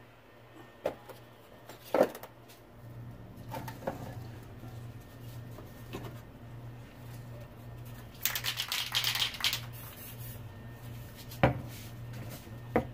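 Spray paint cans and plastic caps clicking and knocking against a tabletop, several separate knocks. About eight seconds in comes a rattling hiss of about a second and a half.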